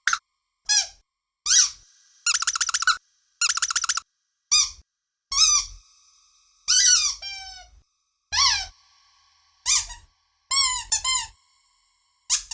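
Squeaky dog toy squeezed over and over: about a dozen short, high-pitched squeaks at uneven intervals with silence between. A few are longer and warble rapidly, and one slides down in pitch as the air runs out.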